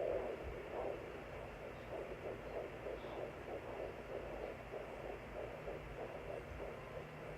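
Fetal heartbeat of a fetus just under ten weeks, heard through a pocket fetal Doppler's speaker: fast, even pulses, about three a second. There is a louder swish right at the start.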